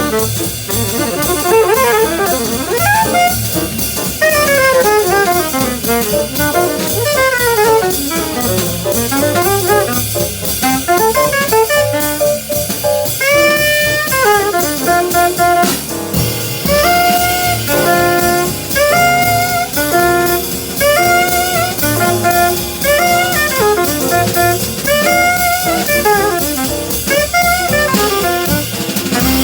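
Small jazz band playing at full volume: a horn solos in fast up-and-down runs over the drums, then from about halfway through the horns play short held chords together.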